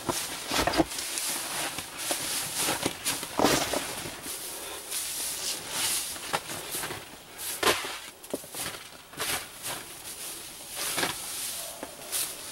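Evergreen boughs rustling and crackling as handfuls are laid and pressed onto a browse bed, an irregular run of swishes and short snaps of needles and twigs.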